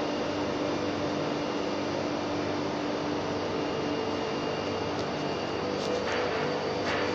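Steady drone of industrial plant machinery, with a few held hum tones in it. A few short clicks or knocks come near the end.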